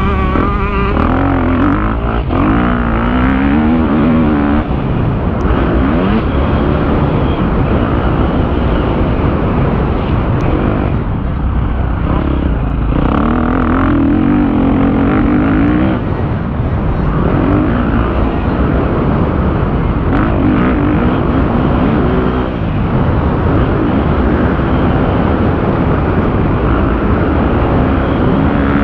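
KTM 250 motocross bike's engine under hard riding, the revs rising and falling with the throttle and dropping off briefly a few times as the rider shuts off and shifts.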